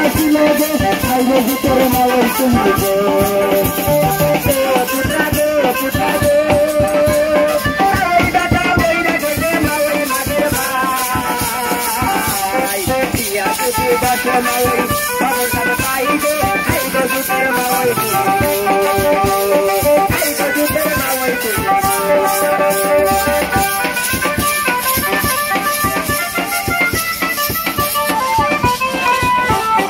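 Live folk song played on keyboard, drum and cymbals, with a melody over a steady, fast beat and a constant rattling percussion.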